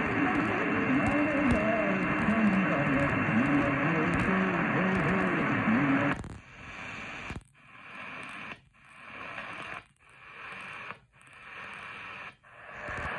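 An Eton Field BT Grundig Edition radio's speaker plays an AM medium-wave station on 1107 kHz, a voice under hiss and static. About six seconds in the audio cuts off as the tuning knob is turned up the band. It then mutes briefly at each tuning step, five times a little over a second apart, with static hiss swelling back between stations.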